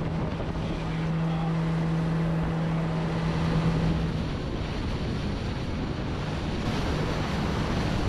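Outboard motor running as a small boat motors across the water, its steady hum fading back about halfway through, over the rush of water past the hull and wind buffeting the microphone.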